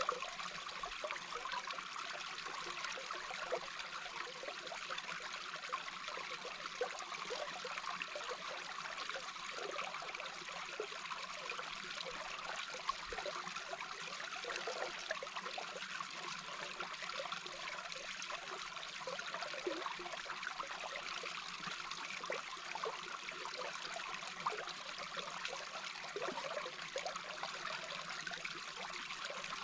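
A small brook heard underwater: a steady rush of flowing water with a dense patter of small gurgles and bubbles.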